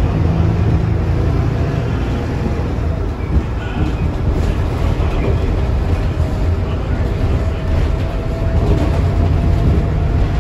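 Scania K280UB city bus under way, heard from inside the passenger saloon: a steady low rumble of the rear-mounted diesel engine and road noise. A faint steady whine comes in about halfway through.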